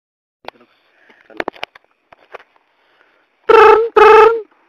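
Telephone ringing: two short buzzy tones in quick succession, a ring-ring, about three and a half seconds in, after a few faint clicks.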